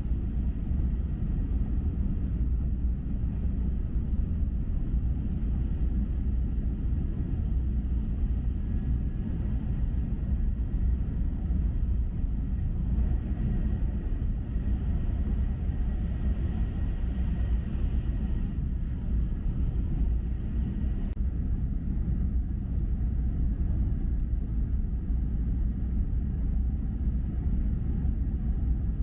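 Steady low rumble of an E6-series Komachi Shinkansen train running at speed, heard inside the passenger cabin, with a faint high whine for a few seconds midway.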